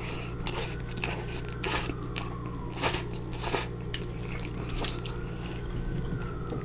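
Close-up chewing of soft, sauce-covered fries: wet mouth sounds with a handful of short sharp clicks, over a steady low hum.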